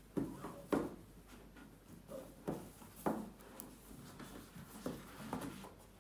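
Cardboard headphone box being handled and opened: a series of irregular knocks and rubbing scrapes as the lid is worked loose from its base, the sharpest two in the first second.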